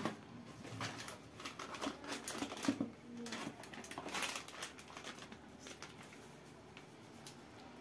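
Crinkling and rustling of a plastic spice-mix sachet as it is pulled out of its cardboard box and tipped over a steel mixing bowl, with faint, irregular crackles and light taps.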